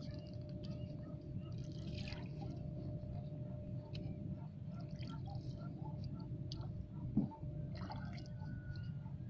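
Water lapping and dripping around a small fishing boat at sea, with small scattered drips over a steady low rumble and a faint steady hum, and one short knock about seven seconds in.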